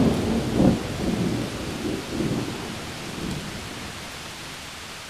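Thunder rumbling over steady rain, a storm sound effect, with a few rumbles in the first couple of seconds and the whole sound fading gradually away.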